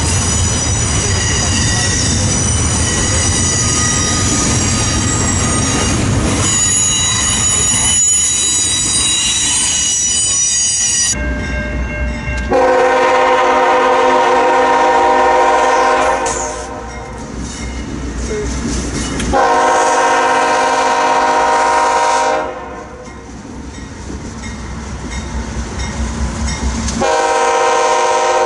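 Double-stack intermodal freight train rolling past with its wheels squealing in steady high tones over the rumble of the cars, for about the first eleven seconds. Then the approaching CSX diesel locomotive sounds its air horn: two long blasts several seconds apart and a third starting near the end, with the engine's rumble growing between them.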